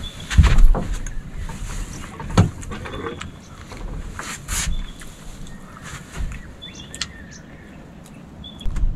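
Irregular knocks and thumps over a low rumble. The loudest comes about half a second in and another near two and a half seconds. Short faint chirps are heard now and then.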